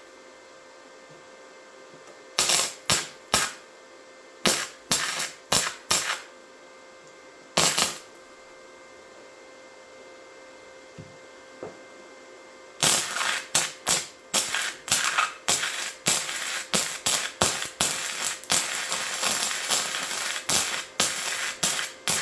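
Flux-core wire welder (Harbor Freight Titanium 125, .035 wire) striking arcs on scrap steel: a few short bursts of arc crackle, then from a little past halfway a longer stop-start run of crackling broken into many short bursts, over a faint steady hum.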